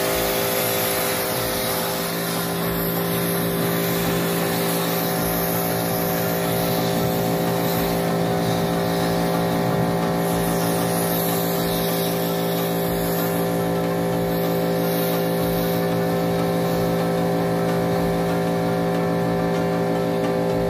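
1800 W electric pressure washer running steadily, its pump motor humming at one unchanging pitch under the hiss of the high-pressure water jet.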